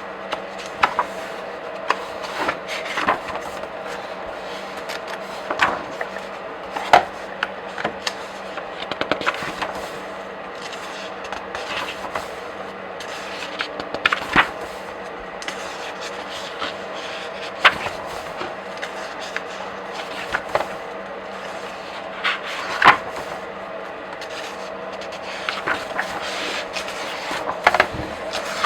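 Pages of comic books and graphic novels being flipped by hand: irregular papery swishes and sharp snaps as each page turns, some in quick runs and some spaced out. A steady hum sits underneath.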